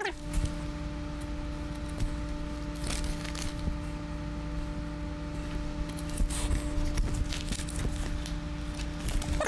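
Light rustling and small clicks of hands working with computer cables and connectors, over a steady low electrical hum.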